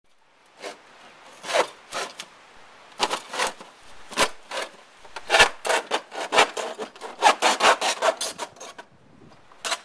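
Hand tool rasping on plastic pipe in quick, irregular strokes, a few a second, starting about half a second in and pausing briefly near the end.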